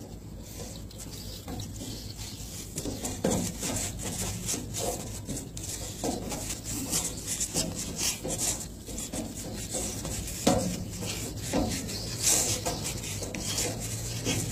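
Irregular scuffs and rubbing sounds of a person shadow boxing, thickening a few seconds in, over a steady low hum.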